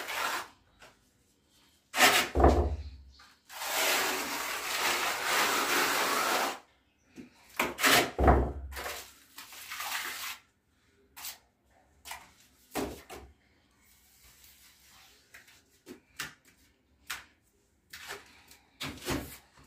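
Ceramic wall tiles being set into tile adhesive: a few hard knocks and thumps as tiles are placed and tapped home, a scraping stretch of about three seconds, and lighter clicks.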